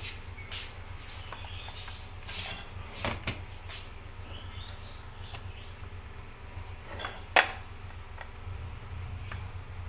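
Serving spoon clinking and scraping against a metal cooking pot and a plate while cooked mutton is dished out: a few scattered clinks, the loudest about seven seconds in, over a steady low hum.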